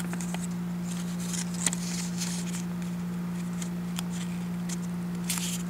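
Printed paper being handled and folded by hand, with a few short crinkles and taps, over a steady low hum.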